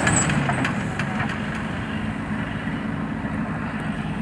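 Heavy diesel engine idling steadily, with a few faint clicks in the first second and a half.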